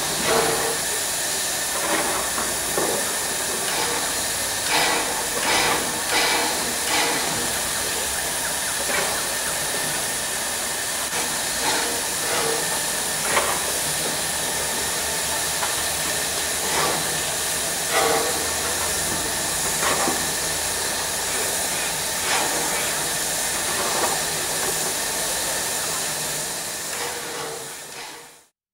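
Steam locomotive at rest, steam hissing steadily, with short sharp knocks now and then; the sound fades out near the end.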